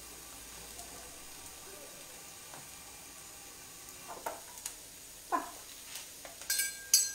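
Tuna steak sizzling steadily on a hot grill pan over a gas burner. In the second half come a few sharp clicks and clinks, the loudest near the end.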